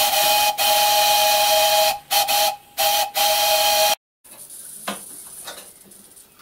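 Steam whistle on a 7¼ in gauge miniature live steam locomotive, blowing a steady two-note tone over a hiss of steam: one long blast and then several short ones. It stops abruptly about four seconds in, leaving only faint clicks and handling noise.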